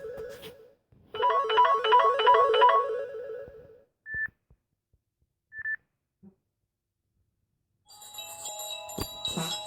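Samsung Galaxy S5 ringtones previewed one after another. A short electronic tune of quick repeated notes plays for about three seconds and stops. Two brief single beeps follow, then, after a pause, a different, fuller ringtone starts near the end.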